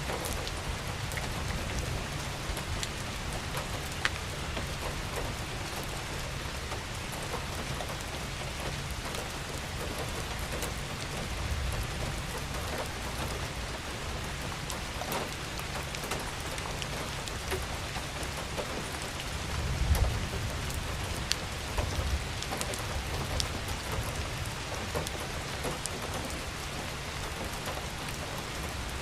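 Steady rain falling on a surface, with individual drops ticking over the hiss and a low rumble underneath that swells briefly about two-thirds of the way through.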